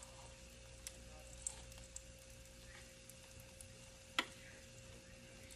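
Faint sizzling of cheese and chicken frying in a pan, with a few light clicks and one sharper knock about four seconds in.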